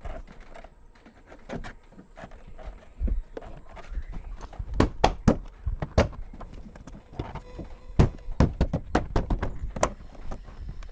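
Irregular knocks and taps as a Maruti Suzuki Alto's plastic door trim panel is struck with a fist and pressed back onto the door, seating the panel's clips. The knocks start sparse and come thick and fast from about four seconds in.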